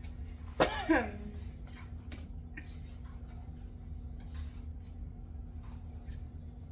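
Scratchy strokes of a utensil stirring a seasoned flour-and-cornstarch dredge in a bowl, repeated throughout. About a second in, a short loud vocal cry falling in pitch cuts across the stirring.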